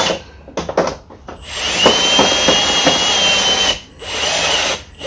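Power drill running in short bursts. First come a few clicks, then a steady run of about two seconds whose whine winds up and back down, then a brief run near the end.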